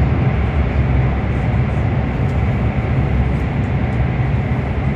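Steady low rumble of a CRH1A-A high-speed electric multiple-unit train running at speed, heard from inside the passenger cabin.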